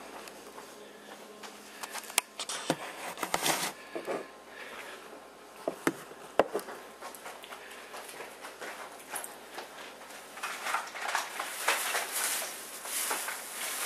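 Scattered knocks and clicks, then from about ten seconds in a plastic shopping bag rustling and crackling as it is handled.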